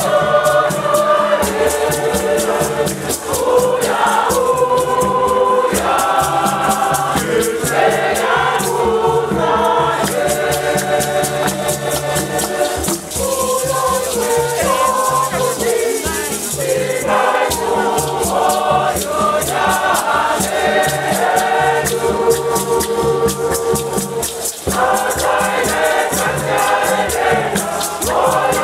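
A choir of many voices singing in harmony, with hand drums beating a steady rhythm and rattles shaking quickly along with it.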